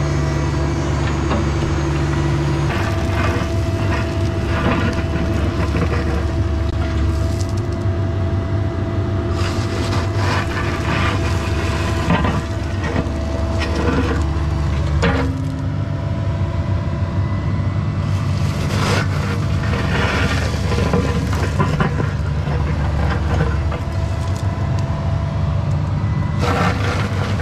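Cat 304E2 mini excavator's diesel engine running under hydraulic load while it digs, its note shifting a few times as the load changes. Over it come repeated scraping and crunching as the steel bucket bites into gravel and soil.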